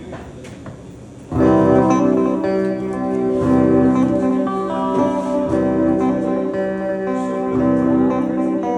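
Acoustic guitar beginning an instrumental intro. After about a second of quiet handling noise, the chords come in loud and ring on, changing every two seconds or so.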